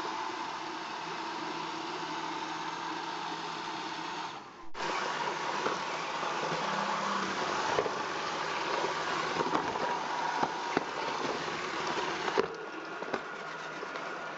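Roomba robot vacuum running with a steady motor whir. It cuts out briefly about four and a half seconds in, then scattered clicks and knocks follow, and the whir gets quieter about twelve seconds in.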